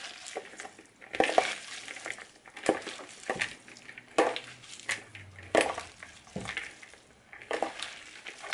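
Hands tossing shredded cabbage salad, dressed with olive oil and lemon juice, in a large bowl. The cabbage rustles and crunches in short bursts, about once a second.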